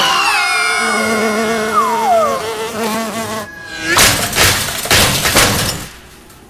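Cartoon sound effects. A long sliding tone falls in pitch over about the first three seconds, with a wavering note beneath it, as for a fall. Then a run of crashes and clatters from about four seconds in, as characters land in a metal shopping cart that skids across sand.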